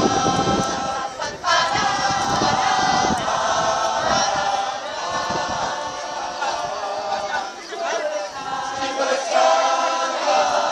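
A large community choir singing together in a chant-like song, the phrases broken by short pauses.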